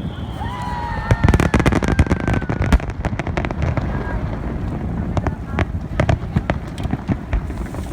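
Fireworks crackling and popping, with a dense run of sharp cracks in the first few seconds that thins out to scattered pops.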